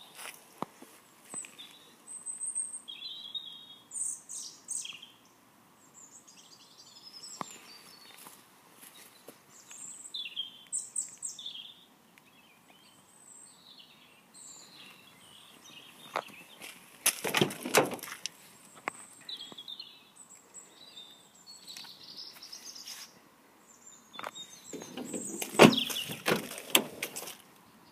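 Wild birds chirping and singing in short, scattered high calls. Twice there is a louder bout of rustling and knocking, the louder one near the end.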